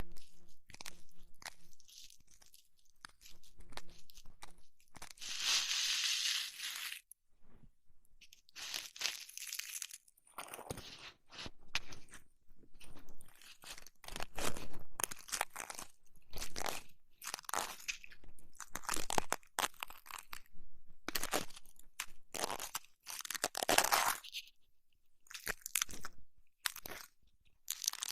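Close-miked ASMR ear massage and cleaning sounds: crunchy rubbing and scratching in irregular bursts, with a longer hissing rub about five seconds in.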